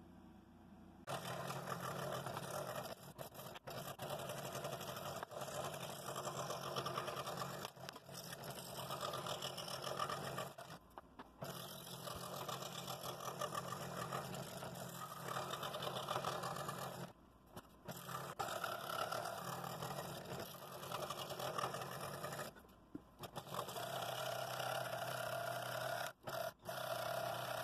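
Scroll saw running, its blade stroking up and down as it cuts along a pattern in a poplar board, with a steady motor hum. The cutting starts about a second in and drops out briefly several times.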